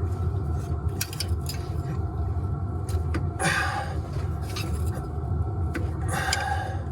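Wrench and vice grips on a stud extractor working a rust-seized exhaust manifold stud on a Detroit Diesel 6V92: sharp metal clicks and two longer scraping sounds, about three and a half and six seconds in, over a steady low rumble.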